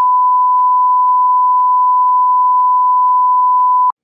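Steady, loud test tone of the kind that goes with television colour bars: a single unwavering beep at one pitch that cuts off suddenly near the end. Faint ticks sound under it about twice a second.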